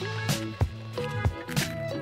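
Background music: a melodic tune over a sustained low note, with scattered percussive hits.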